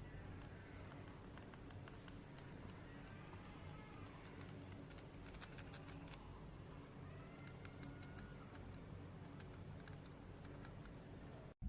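Faint, irregular clicking of computer keyboard keys, like typing, over a steady low hum.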